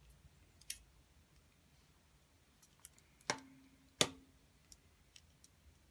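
A few sharp plastic clicks from the opened casing of a Samsung RMCTPH1AP1 smart TV remote being handled, the loudest about four seconds in.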